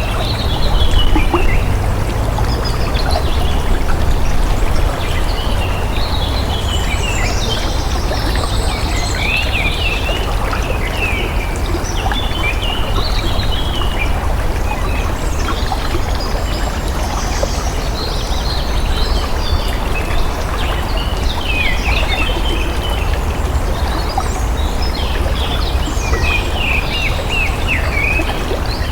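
Flowing water running steadily, with small birds chirping and singing over it throughout.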